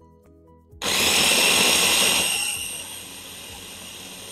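Mini food processor switched on about a second in, its motor and blade grinding garlic, shallot and lemongrass finely. It runs loudest for the first second or so, then settles lower and keeps running steadily.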